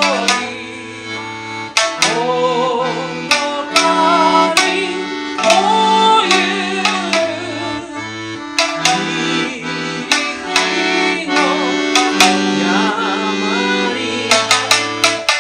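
Instrumental ensemble music: an accordion holds chords over a changing bass line, with sharp hand-percussion strikes and a melody that slides between notes.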